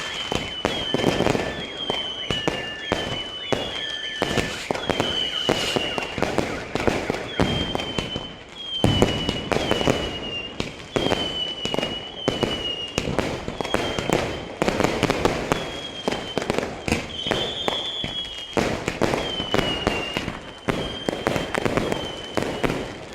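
Many fireworks and firecrackers going off at once, a continuous stream of bangs, pops and crackles with heavier blasts now and then, the loudest about nine seconds in. A short high falling tone repeats about once a second throughout.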